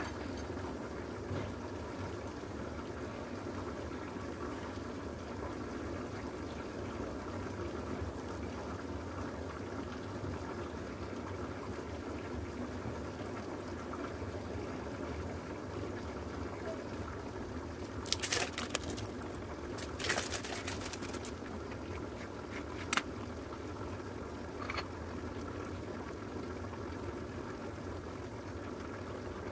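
Steady bubbling hiss of a pot boiling on the stove, with a few short sharp clicks and rattles about two-thirds of the way through.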